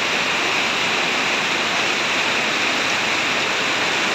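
Heavy rain falling, a steady dense rushing hiss.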